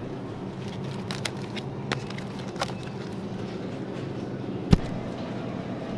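Grocery store ambience: a steady low hum with scattered light clicks as plastic-wrapped meat trays are handled, and one sharper knock about three-quarters of the way through.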